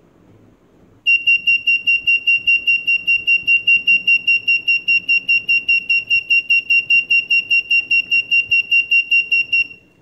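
The Raspberry Pi alarm's buzzer sounding its intruder siren: one high tone beeping rapidly and evenly, about five beeps a second. It starts about a second in and cuts off shortly before the end as the system is disarmed with the PIN.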